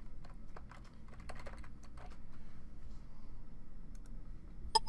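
Typing on a computer keyboard, a scatter of keystrokes, then one sharp louder click near the end, like a mouse button.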